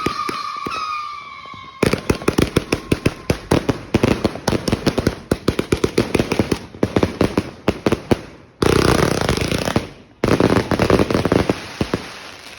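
Eclipse 2 260-shot firework cake firing in rapid bursts: a dense run of shots and crackling pops, with falling whistles for the first couple of seconds and a continuous crackle partway through.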